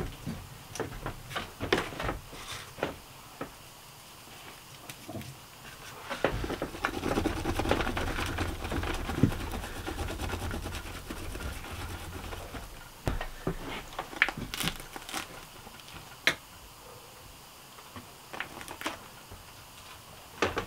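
Small clicks and crackles of garlic skin being peeled off a clove by hand. In the middle comes several seconds of rough scraping as the peeled garlic clove is rubbed over the charred crust of a round loaf of bread, followed by more light taps and handling clicks.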